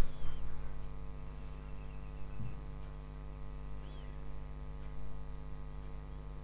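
A steady low hum with two faint, short high chirps, one near the start and one about four seconds in, and a soft low thump about halfway through.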